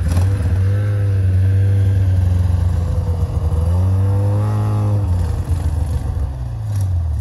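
Snowmobile engine running under way, a steady low drone whose pitch wavers and rises with the throttle about four seconds in, then drops off again about a second later.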